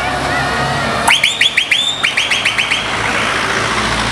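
A rapid string of about a dozen short, rising electronic chirps, about seven a second, from a vehicle's electronic siren-type sounder, starting about a second in and stopping near three seconds in. It plays over the steady rumble of passing vehicles.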